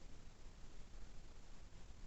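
Near silence: faint room tone with a low, steady hiss.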